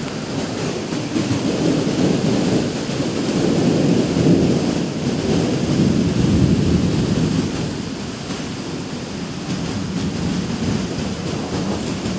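Thunderstorm rumble: a continuous low roll of thunder mixed with wind, swelling and easing over several seconds and dipping for a couple of seconds about two-thirds of the way through.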